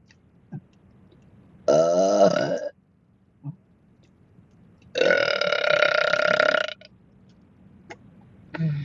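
Two loud burps from a woman: a short one of about a second, then a longer, steadier one of nearly two seconds.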